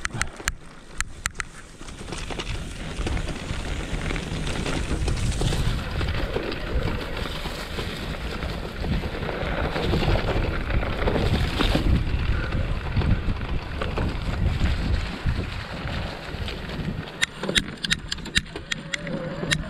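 Wind buffeting the microphone and mountain-bike tyres rolling over a dirt trail strewn with dry leaves, louder from about two seconds in, with scattered clicks and rattles from the bike.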